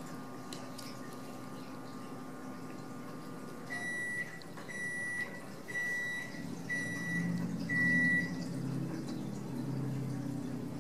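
An appliance's electronic beeper sounds five times, evenly spaced, each beep about half a second long and high-pitched. The beeps begin just as a steady appliance hum cuts off, in the way an appliance signals the end of its cycle.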